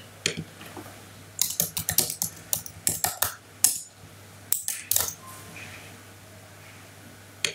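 Computer keyboard typing: a quick run of keystrokes over about two seconds, a few more about five seconds in, then it stops.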